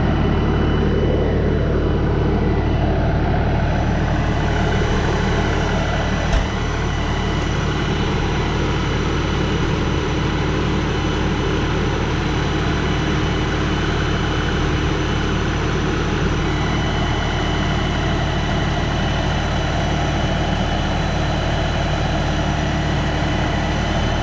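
42 hp LS compact tractor's diesel engine running steadily while the loader tractor is manoeuvred, with a single sharp knock about six seconds in.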